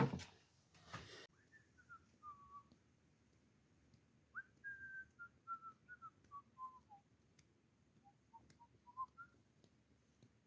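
A person whistling faintly, a few short tune phrases whose notes mostly step downward, with a brief knock near the start.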